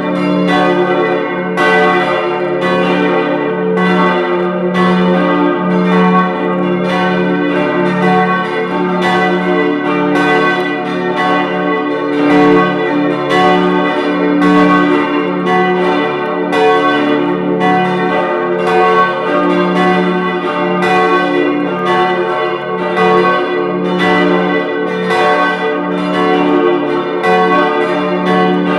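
Full peal of four swinging church bells tuned d', f-sharp', a' and b', all ringing together. Their strokes follow one another in a continuous, overlapping stream over a steady ringing hum.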